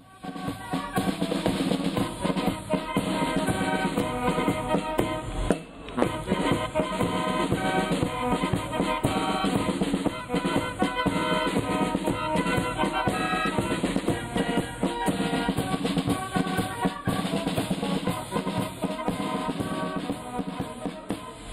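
Music with drums and a steady beat. It drops out briefly about five seconds in and comes back with a strong hit.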